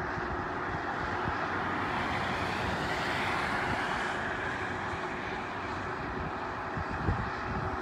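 Steady noise of highway traffic going by, with wind buffeting the microphone in irregular low thumps, one stronger about seven seconds in.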